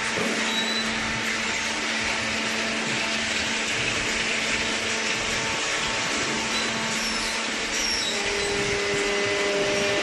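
Steady whirring hum and hiss of a running hydraulic waste-paper baler, even in level, with a few faint steady tones; another tone joins about eight seconds in.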